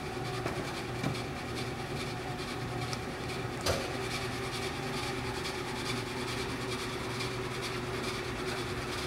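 Hardinge HLV-H toolroom lathe running in its slow speed range, a steady hum from the variable-speed drive and spindle with a light, even ticking over it. There is a single sharp click a little before the middle.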